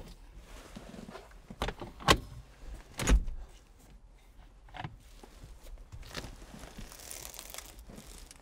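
Clicks and knocks as the MG TF's fabric soft top is unlatched and folded back by hand, the loudest a dull thump about three seconds in, then rustling of the hood near the end.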